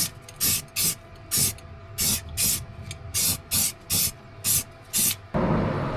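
Aerosol spray paint hissing out in about eleven short bursts, each under half a second. A steady rushing noise takes over near the end.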